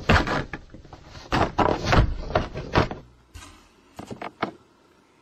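A cat's paw scrabbling and batting through a hole in a cardboard box, a quick run of scrapes and knocks against the cardboard and the board in front of it. About four seconds in come a few lighter taps as a hand sets a dry cat treat down on the board.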